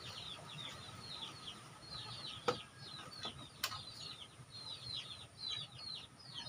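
Chicks peeping steadily in short, falling chirps, with two sharp clicks a second apart near the middle.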